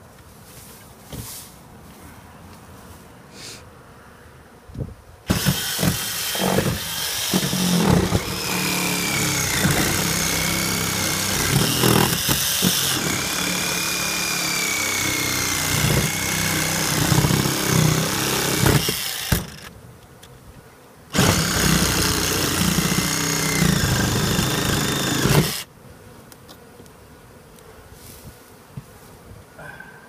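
Cordless reciprocating saw cutting through wooden house siding in two runs: a long cut of about fourteen seconds starting about five seconds in, then, after a short pause, a cut of about four seconds. The motor's pitch wavers up and down as the blade works through the wood.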